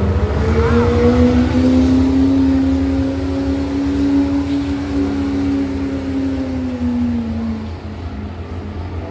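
Chevy Silverado's Duramax turbo-diesel V8 running flat out under heavy load, dragging a weight-transfer pulling sled. The engine note holds steady and high, with a deep rumble beneath it, then drops away about seven and a half seconds in as the pull ends.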